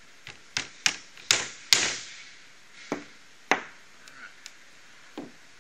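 Hammer tapping a small pin into the pre-drilled hole of a fitting on a metal tube frame: a quick run of sharp taps in the first two seconds, then a few more spaced-out taps.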